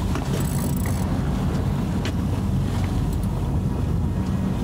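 A small boat's single engine running steadily as a low hum, with wind and water noise over it.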